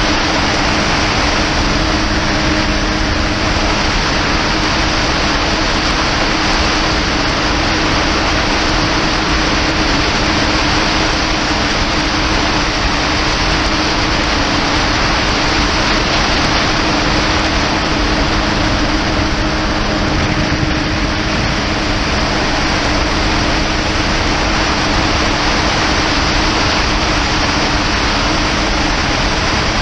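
Kawasaki Ultra 300X jet ski's supercharged four-cylinder engine running at a steady high cruising speed. A constant hum with low steady tones sits under a loud, even rush of wind and water on a handlebar-mounted camera.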